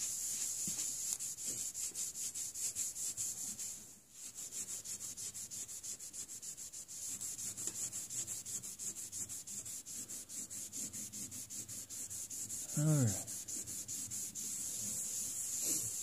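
Paper towel soaked in acetone scrubbed back and forth over a sheet-metal plate in quick strokes, about three or four a second, to strip the nail-polish resist after etching. The strokes pause briefly about four seconds in. Near the end comes a short low voice sound with a falling pitch.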